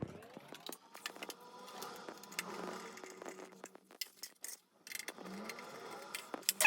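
Scattered light clicks, taps and scraping of hands and a screwdriver working on a DVR recorder's case while its cover is refitted and screwed down, with a sharper click near the end.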